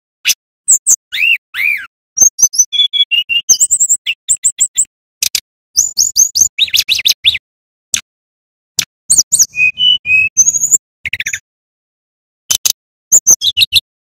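Male brown-chested jungle flycatcher singing. Its song comes in bursts of fast, varied high chirps, slurred whistles and quick trills, separated by short pauses.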